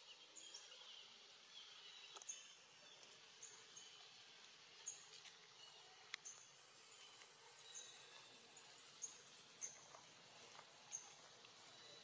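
Faint outdoor ambience: short, high chirps repeat irregularly about once a second. A thin high whistle runs through the middle, and a few sharp clicks stand out as the loudest sounds.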